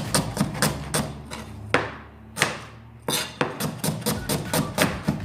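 Kitchen knife chopping onion fast on a cutting board: quick, even knocks about five a second, with a pause of about a second in the middle.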